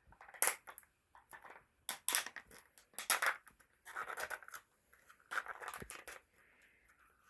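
Packaging of a new ink cartridge being torn and handled open: a series of short, irregular scratchy rips and rustles.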